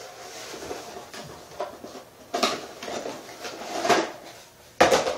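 Cardboard box being handled and opened and a steel ATV live axle hub lifted out: rustling of cardboard, then several short knocks, the sharpest just before the end.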